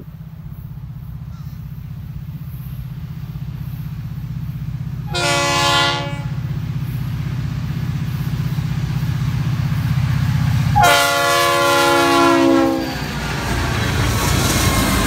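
Florida East Coast GE ES44C4 diesel locomotives approaching and passing close, their engines a steady low drone that grows louder throughout. The air horn sounds a short blast about five seconds in and a longer one about eleven seconds in. Wheel and rail noise swells near the end as the lead units go by.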